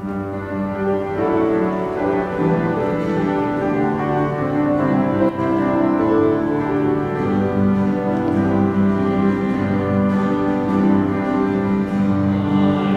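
Church organ music: held chords that change every second or two, starting suddenly.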